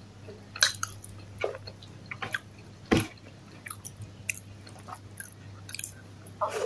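A person chewing a mouthful of food, with scattered short mouth clicks; the loudest comes about three seconds in. Near the end another handful of food goes into the mouth.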